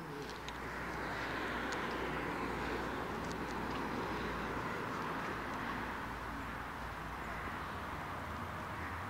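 City street traffic: a steady rush of passing vehicles with a low rumble, building about a second in and then holding.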